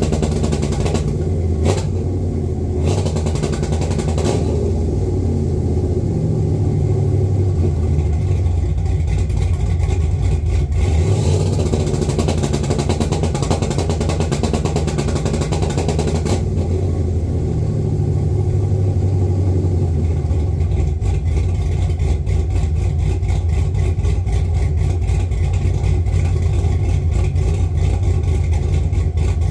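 Cammed 6.0-litre LS V8 running loud, its pitch rising and falling as it is revved, with a rapid crackling stutter in the second half.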